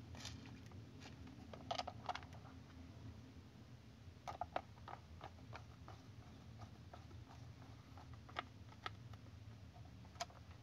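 Faint clicks and taps of a small screwdriver working in the screw holes of a DT9208A multimeter's plastic back cover, with the case being handled. A few sharper clusters of clicks come about two seconds in and again about four and a half seconds in.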